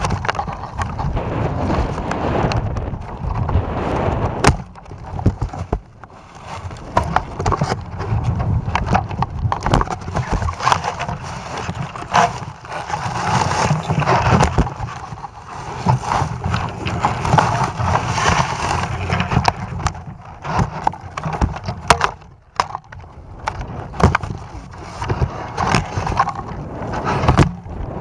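Handling noise: rubbing, knocking and clattering on the camera payload as it is moved and carried, over a constant low rumble.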